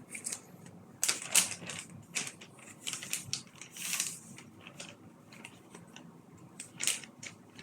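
Loose plastic Lego pieces clicking and clattering, with a plastic parts bag rustling, as they are rummaged through by hand. The clicks come at an uneven pace, with a longer rustle about four seconds in.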